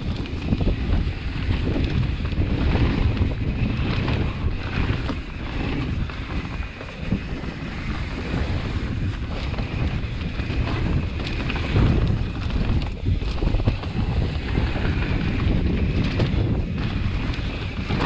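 Wind rushing over the microphone as a mountain bike rides fast down a dirt flow trail, with tyre noise and frequent short knocks and rattles from the bike going over bumps.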